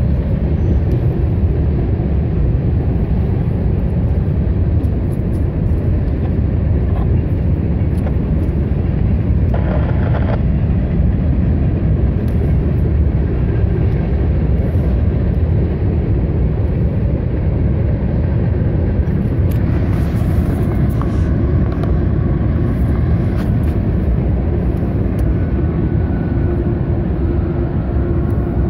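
Freight train of covered hopper cars rolling past, a steady low rumble.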